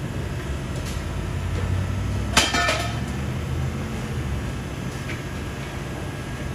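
Exhaust of a BMW E92 328i's straight-six, running through catless headers, a Cherry Bomb resonator and a muffler, giving a steady low drone. A single sharp knock that rings briefly comes about two and a half seconds in.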